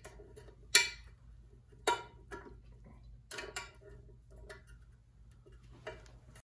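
A small metal hand tool clicking and tapping against the timing cover of a Mopar flathead six engine block: several short, sharp metallic clicks at uneven intervals, the loudest in the first two seconds.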